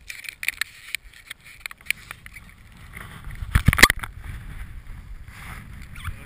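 Close handling noise on a head-mounted action camera: a plastic water bottle crackling in the hand, then a loud rub and knock about three and a half seconds in as a bare hand brushes past the camera.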